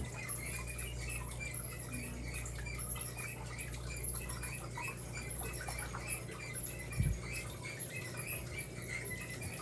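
Clothes dryer running: a steady low hum with a fast, even, high-pitched ticking on top, and a single dull thump about seven seconds in.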